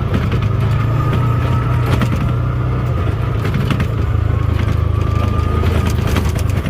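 Vehicle engine running steadily, with a low drone and scattered rattles and knocks over rough ground.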